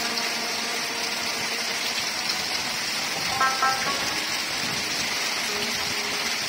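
Heavy rain falling steadily. About halfway through, a short run of a few pitched notes rises briefly above it.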